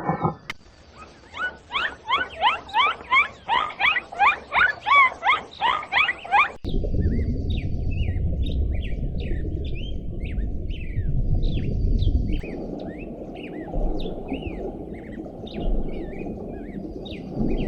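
Animal calls in two clips. First comes a fast run of about twenty sharp chirps, each falling in pitch, for about six seconds. After a sudden cut, small birds chirp scattered over a steady low rumble.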